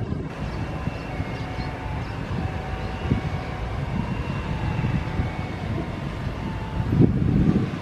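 Boeing 737 airliner's jet engines running, a steady rumble with faint whining tones, louder near the end, with wind buffeting the microphone.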